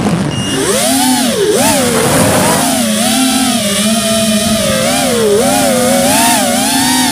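Quadcopter drone's electric motors whining, heard up close from the onboard camera. The pitch swoops down and up again and again as the throttle changes during a flip and a dive, with two deeper dips.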